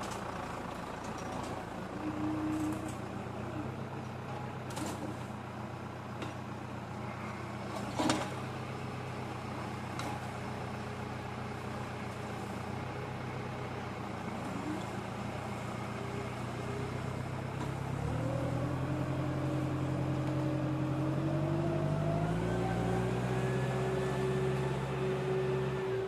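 Deutz-Fahr Agroplus 90 F tractor's diesel engine running steadily under load while skidding a log. About 18 seconds in the engine speeds up and gets louder, its pitch rising. There is a single sharp knock about 8 seconds in.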